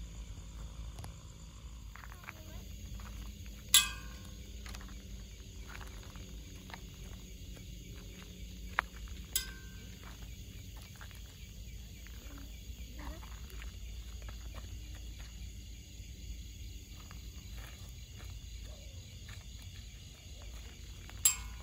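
Outdoor night ambience: a steady low rumble with faint insect chirping. Three short, sharp sounds break it, about four seconds in, at about nine and a half seconds, and loudest near the end.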